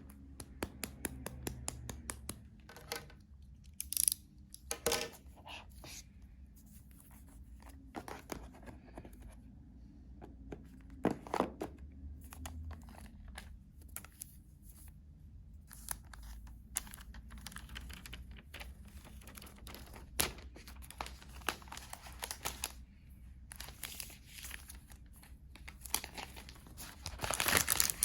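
Packaging being handled: crinkling and tearing, with scattered light taps and clicks.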